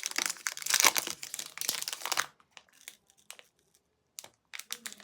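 Chocolate bar wrapper crinkling and tearing as the bar is unwrapped: a dense run of crackles for about two seconds, a quiet pause, then a few more crinkles near the end.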